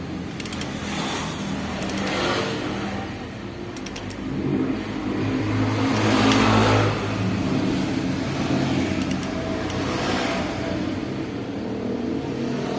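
Suzuki GT750's two-stroke three-cylinder engine running, swelling to a rev about six seconds in before settling back.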